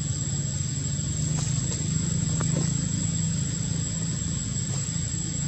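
A steady low engine-like drone, with a thin, steady high-pitched whine above it and a few faint ticks.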